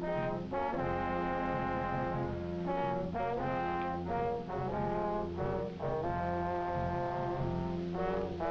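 Brass-heavy orchestral cartoon score holding long, tense chords that shift every second or so.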